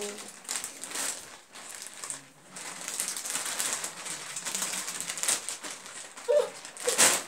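Clear plastic wrapping on a large stuffed teddy bear crinkling and rustling in irregular bursts as it is dragged and lifted.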